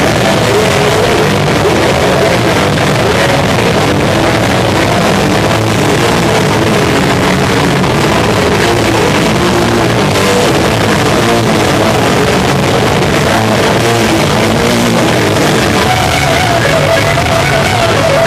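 Hardcore punk band playing live: loud, dense guitar-driven music that runs without a break.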